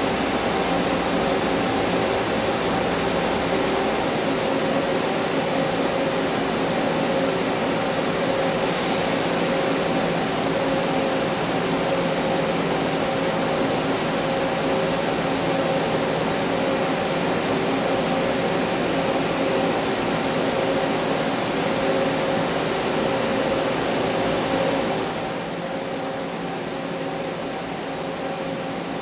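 Doosan PUMA TT1800SY twin-spindle CNC turning center running: a steady machine hum with several held tones over an even hiss, dropping a little in level near the end.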